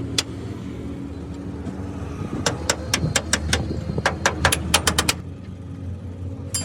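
Sharp metal knocks, a quick run of about fifteen strikes in under three seconds in the middle, with a few single knocks around them, over the steady low hum of a running engine.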